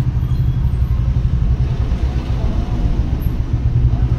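Loud, steady low rumble of outdoor background noise, with no single event standing out.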